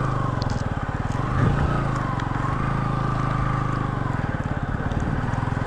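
Motorcycle engine running steadily as the bike rides over a rough dirt track, with a rapid, even chug from its firing.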